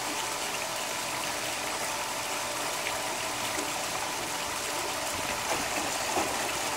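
Steady rush of moving water in a backyard swimming pool, with a few faint splashes as a child swims across.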